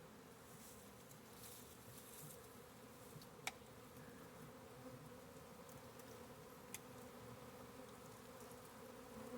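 Faint, steady hum of a honey bee swarm buzzing. Two short sharp clicks cut through it, one about three and a half seconds in and another a few seconds later.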